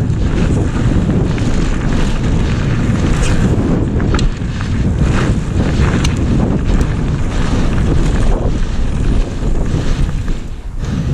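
Strong wind buffeting the microphone: a loud, gusting rumble heaviest in the low end, with a few sharp clicks.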